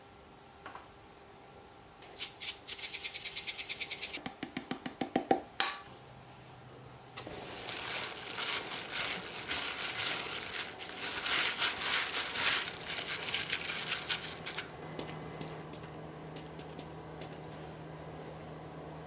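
A hand in a disposable plastic glove mixing a mashed tofu and chopped vegetable filling in a glass bowl, with crinkling plastic, and squishing and rustling that go on for several seconds. The mixing starts with a short burst of rapid crackling and a run of separate clicks.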